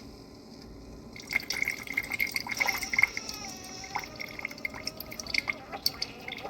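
Keurig K-Iced coffee maker dispensing brewed coffee into a cup: liquid starts streaming and dripping about a second in, with many small splashes and spatters.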